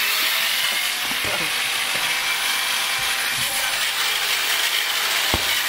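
Competition robot's flywheel ball shooter and its gearbox running with a steady mechanical whir, with a few light knocks.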